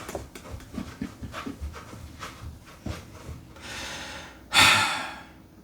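Scattered faint clicks, then a loud breathy exhale or snort about four and a half seconds in.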